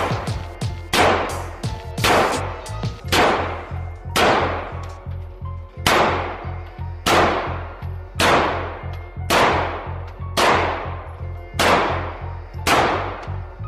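AR-style rifle fired shot after shot at a steady pace, about one shot a second, each report ringing on in the reverberant indoor range.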